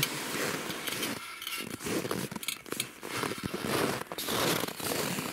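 Rustling and scraping from winter clothing and gear being handled, with scattered short crackles; no drill motor is running.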